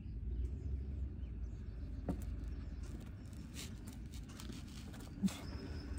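Low muffled rumble of clothing shifting against the microphone as a steering stabilizer shock is pushed in by hand, with a few faint knocks about 2, 3.5 and 5 seconds in.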